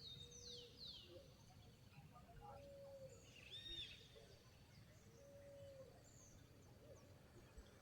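Near silence with faint birds calling in the background: short arched chirps every few seconds, a couple of quick falling notes, and a few lower, longer held notes.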